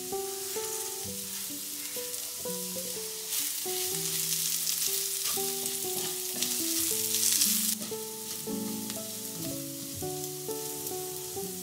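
Diced boiled potatoes frying in olive oil in a pan, sizzling steadily, as chopped chives go in and are stirred with a wooden spatula. The sizzle gets louder about three seconds in and drops back at about eight seconds. Soft background music plays underneath.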